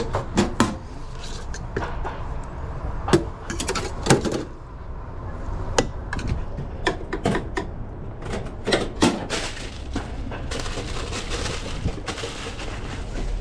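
Metal lids, tongs and steam-table pans of a stainless-steel hot dog cart clanking and clicking at irregular intervals as hot dogs are dressed, then paper crinkling as one is wrapped near the end.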